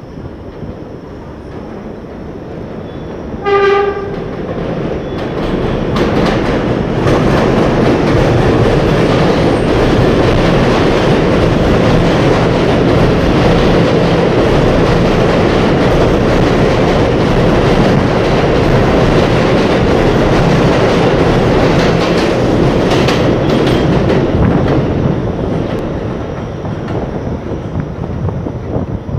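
New York City subway train on an elevated line sounds a short horn blast about three seconds in. It then comes in along the platform, its wheels and motors rumbling loudly over the rails on the steel structure, and the noise fades near the end.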